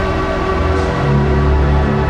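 Background music: sustained synth tones over a deep bass note that shifts about a second in.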